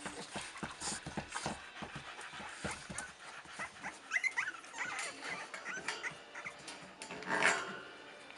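Staffordshire bull terrier puppies whimpering, with short high rising-and-falling squeaks about halfway through, over quick panting. A brief louder noisy sound comes near the end.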